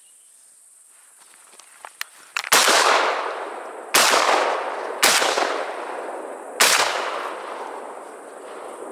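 Four shotgun shots fired in quick succession, about a second to a second and a half apart, each trailing off in a long echo. A few faint clicks come just before the first shot.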